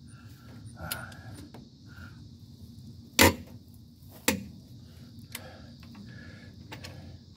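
Metal tool clicks on a truck's lug nuts: two sharp metallic clacks a little over a second apart, midway through, with a few fainter clicks around them, as a socket extension and a click-type torque wrench are worked on the wheel.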